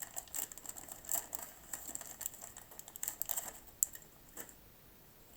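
Rustling and crinkling of wax-paper baseball card packs and the cards inside being handled, a quick patter of small clicks and crackles that thins out after about four seconds.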